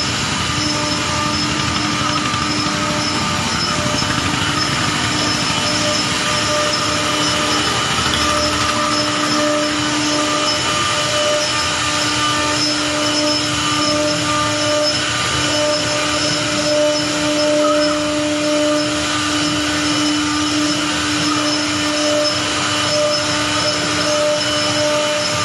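Double-head CNC wood router with two 3.5 kW air-cooled spindles running and milling wooden boards. It makes a steady whine over a rough cutting noise.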